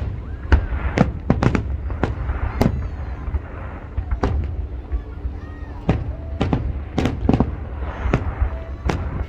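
Fireworks display: an irregular string of over a dozen sharp bangs, some in quick succession, over a continuous low rumble.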